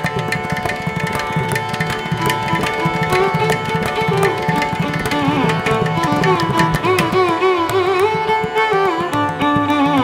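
Instrumental Indian classical-style background music: tabla drumming over a steady drone, with a melody that bends and wavers coming in a few seconds in.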